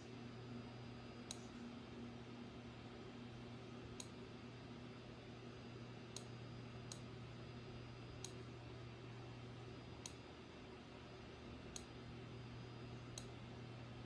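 Faint, short clicks, about eight at irregular intervals a second or two apart, as a finger taps through the menus on a Clover kiosk's touchscreen, over a low steady hum.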